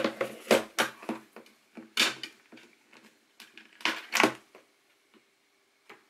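A screwdriver bit case is set down on a desk, clicked open and rummaged for a bit: a run of sharp clicks and knocks that thins out after about four and a half seconds.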